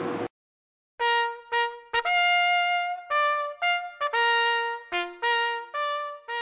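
Solo trumpet playing a short melody of separate notes, some held longer, with no accompaniment. It starts about a second in, after a brief silence.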